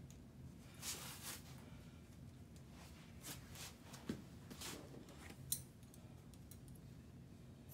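Adhesive athletic tape being pulled off its roll while wrapping an ankle: a few short, faint rasping peels, about a second in, around three and a half seconds in and near five seconds, with a sharp click about five and a half seconds in.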